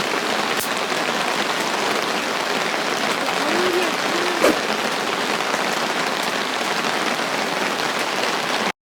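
Steady heavy rain falling on surfaces, with a few sharper drop ticks; it cuts off abruptly near the end.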